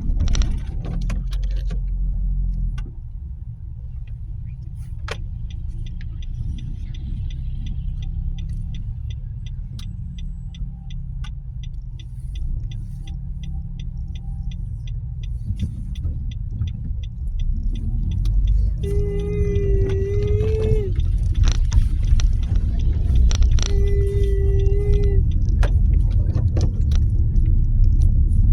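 Low, steady rumble of a Nissan Qashqai 1.2 running. A fast, regular ticking goes on for about ten seconds in the middle, and two held tones of about two seconds each come near the end.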